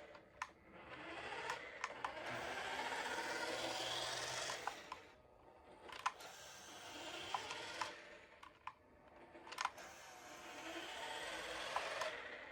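Small electric motor and gearbox of a Jada Back to the Future remote-control car whirring as it drives on carpet, in three runs of a few seconds each with short pauses between, with scattered sharp clicks.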